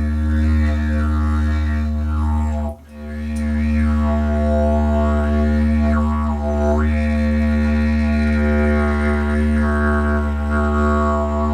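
Didgeridoo droning on one low note, its overtones swept up and down by changing the mouth shape. The drone breaks off briefly for a breath about three seconds in, then resumes.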